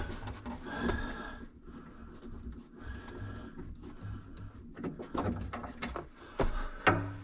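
Phillips screwdriver turning a stubborn screw out of a panel: scraping and creaking strokes in short spells, then several sharp clicks and knocks near the end.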